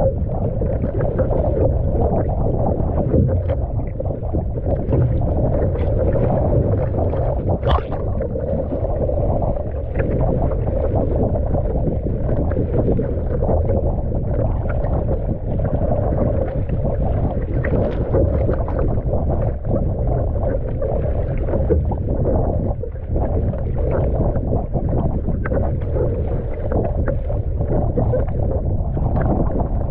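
Wind rumbling on the microphone over choppy sea water splashing and rushing along a surfski's hull as it is paddled through a crosswind and cross-waves, with scattered small splashes.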